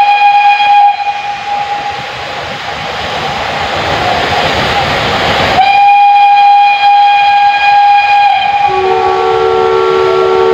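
Steam locomotive whistle blowing a long, steady, shrill blast, then a loud rush of steam hiss lasting several seconds, then a second long blast. Near the end a lower, several-note horn chord sounds. The whistling is the departure signal.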